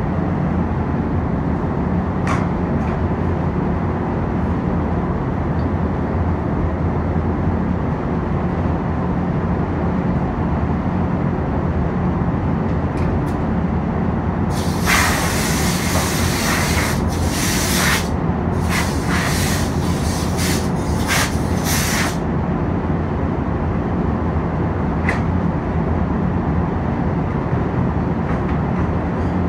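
Steady low rumble of a paint booth's ventilation fans. About halfway through comes a run of several short, loud hisses of compressed air from a hand-held air gun, spread over some seven seconds.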